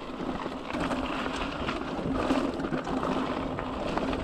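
Mountain bike rolling along a dirt singletrack trail: steady tyre and wind noise with small rattles and clicks from the bike.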